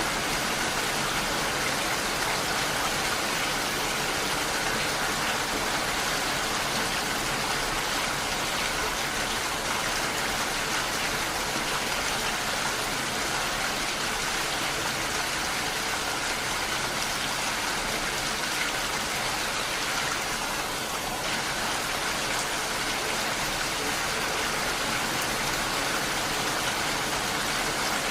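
Heavy rain falling steadily, an even hiss with no single drops standing out.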